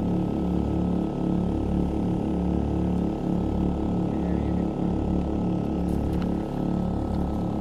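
Maxpeedingrods 3500-watt portable gas generator running steadily under load, an even engine hum.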